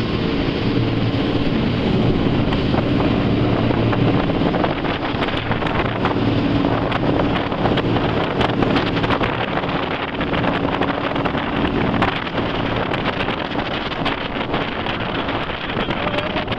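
Jet boat running across turbulent water, with wind buffeting the microphone and water splashing against the hull. A steady engine hum is plain for the first four or five seconds, then drops away under the wind and water noise, which carries many small spattering clicks.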